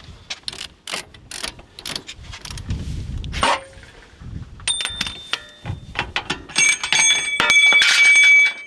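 Steel ball joint press being taken off a steering knuckle: scattered clicks and knocks as the C-frame and screw are handled, then from about five seconds in the metal press cups clink against each other and ring, loudest near the end.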